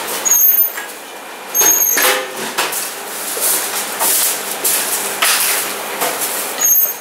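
Food-counter kitchen noise as burrito wraps are assembled: rustling and clatter of tortillas and serving utensils, with irregular short hissing bursts.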